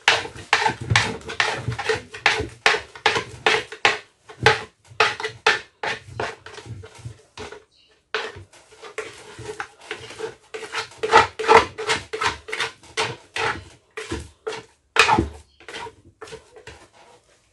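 A plastic scoop scraping and slapping soft pounded yam against the inside of a wooden mortar while a wooden pestle presses it into one lump: quick irregular strokes, with a short break about halfway.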